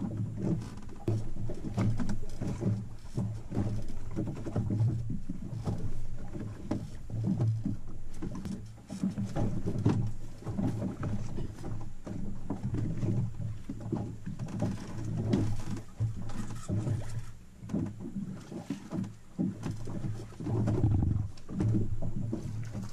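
Wind buffeting the microphone on an open boat at sea, a low rumble that rises and falls in irregular gusts, with water slapping against the hull.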